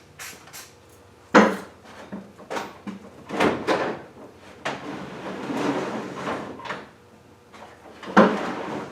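Metal hand tools being rummaged through: wrenches clanking and scraping, with sharp knocks about a second and a half in and again near the end.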